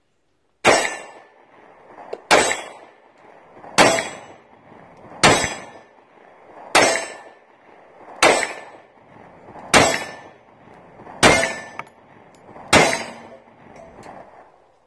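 A SCCY CPX2 9mm pistol firing nine shots of 124-grain full metal jacket at a slow, even pace, about one every second and a half. Each shot has a short ringing tail.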